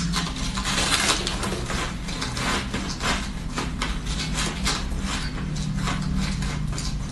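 Close crunching and chewing of soft, powdery ice in the mouth: a fast, irregular run of crisp crunches. A steady low hum runs underneath.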